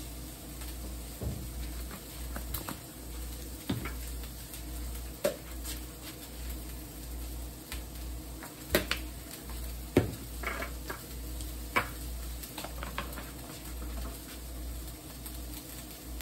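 Spice shakers being shaken over a griddle pan of diced onions and peppers, with scattered light clicks and taps of the shakers and cookware. A steady low hum runs underneath.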